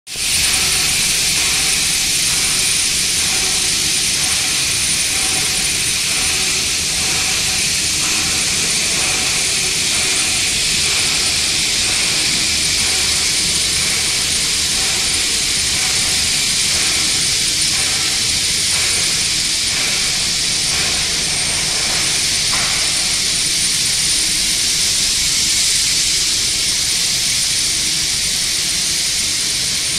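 Steady industrial machinery noise in a factory hall: a constant loud hiss with a thin high whine over it and faint hums coming and going underneath.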